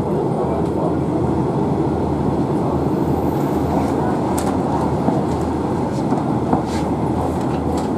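Inside a Class 142 Pacer diesel multiple unit moving slowly: a steady low rumble from the diesel engine and the wheels on the rails, with a few sharp clicks.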